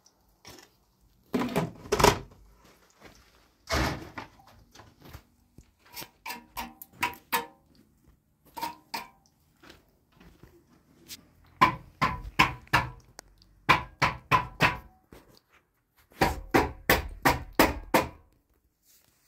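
Sharp knocks in quick runs of several strokes, about three a second, with two heavier, noisier thuds in the first few seconds.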